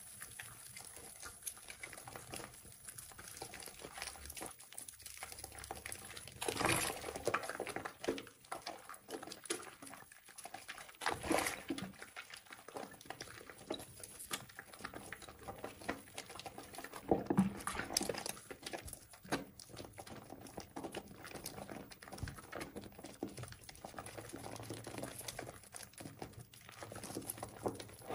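Soaked, mushy soap bars being squeezed and rubbed between wet hands in soapy water: irregular wet squelching and crackling of lather, with a few louder squeezes now and then.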